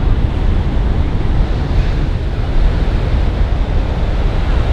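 Ocean surf breaking and washing on the shore, with wind buffeting the microphone in a steady low rumble.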